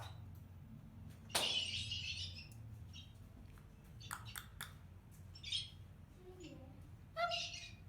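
Bird-like animal calls: a harsh noisy squawk, a quick run of sharp clicks, and a pitched call that comes back near the end, over a low steady hum.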